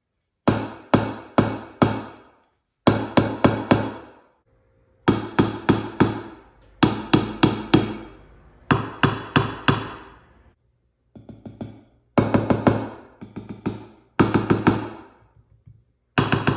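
Wooden drumsticks striking a Meinl Split Tone practice pad in short groups of about four quick strokes, each group about a second long, with brief pauses between them. One group just after the middle is played softer.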